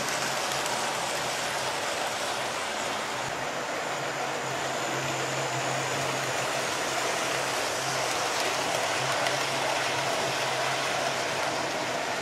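Model railway trains running around the track: a steady whirr of small wheels on the rails and the electric motors, with a faint low hum.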